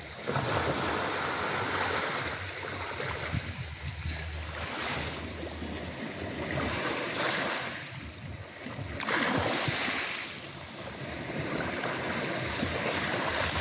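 Small waves washing over a coral-rubble beach, the surf swelling and fading every few seconds, with some wind on the microphone.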